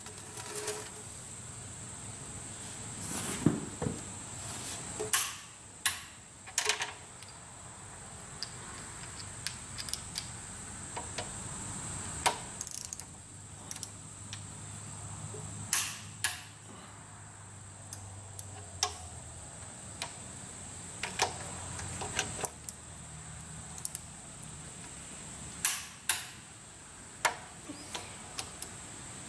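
Torque wrench tightening the cylinder head bolts of a Cummins 8.3L diesel, working through them to the first 55 step: a string of short sharp clicks at uneven intervals as the wrench ratchets and the socket is moved from bolt to bolt.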